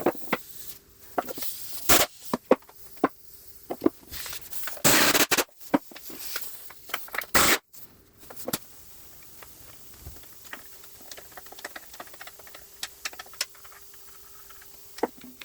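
Metal-on-metal knocks, clanks and a scrape from tools and the engine's crankcase being handled, busiest in the first half, then lighter scattered clicks of a spanner as the end housing nuts are undone.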